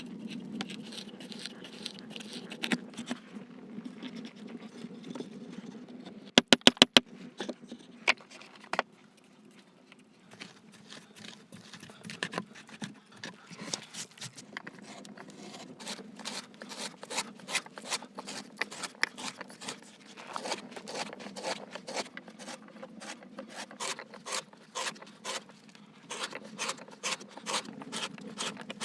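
Scraping and rubbing with many sharp taps and clicks. About six seconds in come four very loud clicks in quick succession, and the second half is a dense run of quick taps.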